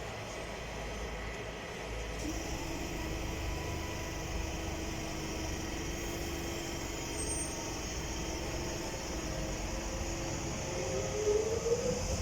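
Electric train at a station: a steady motor whine sets in about two seconds in, then a rising whine near the end as a train accelerates.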